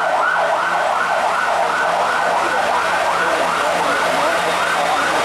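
Fire engine siren in a fast yelp, its pitch sweeping up and back about three times a second, over a steady background din.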